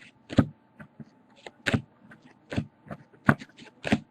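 Baseball trading cards being handled and flipped through by hand: a string of irregular sharp clicks and snaps, one to three a second.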